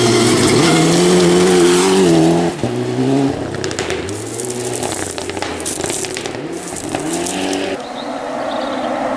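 Rally car engine under hard acceleration, revs climbing and dropping through gear changes, with a sudden lift off the throttle about two and a half seconds in. Sharp crackles come through the middle, and near the end the sound switches abruptly to a quieter engine.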